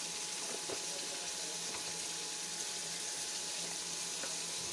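Beef pieces sizzling steadily in hot oil in an aluminium pressure cooker as the meat is browned, with a few faint clicks.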